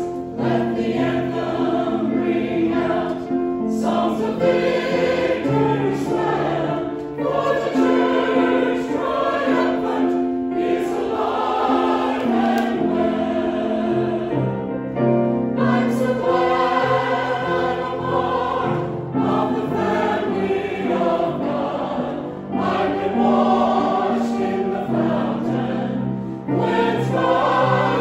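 A small mixed church choir of women and men sings a hymn together.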